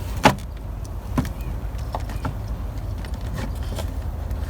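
Plastic air-filter box cover being lifted and pulled apart, giving a few sharp plastic clicks and knocks, the loudest one just after the start, over a steady low rumble.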